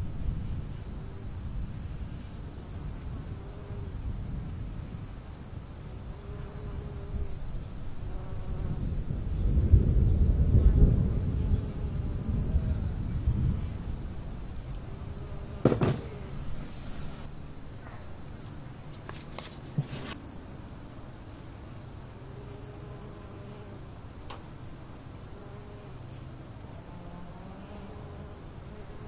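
Steady, high-pitched trilling of insects, cricket-like, running throughout. A low rumble swells around ten seconds in, and a few sharp knocks come between about sixteen and twenty seconds in, as the metal wheel hubs are handled on the table.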